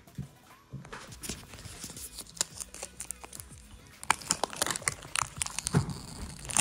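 Stiff zipper on a nylon cooler bag being pulled open in jerks, with irregular clicks and the rustle and crinkle of the bag's fabric and lining; the zipper is very hard to unzip. The rustling grows louder and busier about four seconds in as the lid opens.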